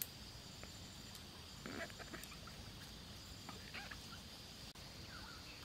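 Quiet outdoor background: a steady high insect drone with a few faint, short animal calls.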